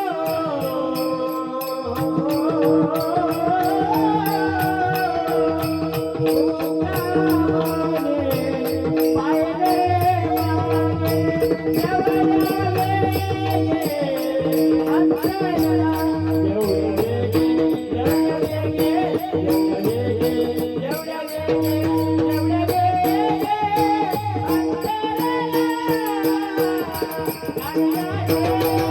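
Marathi gavlan devotional folk song: a singer's voice sliding through ornamented melodic phrases over a steady held drone note, with low drum beats and a fast, even high ticking of percussion keeping time.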